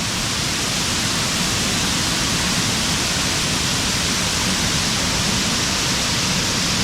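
Waterfall rushing, a loud, steady noise of falling water.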